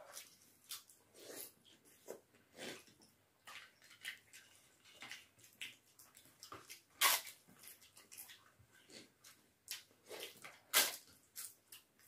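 Close-up eating sounds of people eating by hand: irregular wet chewing and smacking of rice and dal, with sharper crunches of a crisp fried papad being bitten, the two loudest about seven and eleven seconds in.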